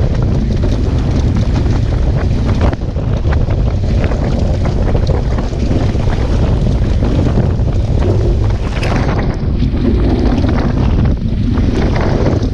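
Heavy wind buffeting the microphone as a Hobie Cat Bravo catamaran sails fast, with water rushing and splashing against the hull.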